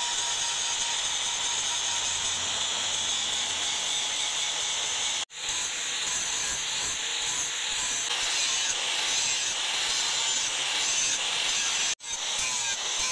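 Angle grinder with an abrasive disc grinding a steel axe head forged from truck leaf spring: a steady, high-pitched grinding hiss that cuts out for an instant about five seconds in and again near the end.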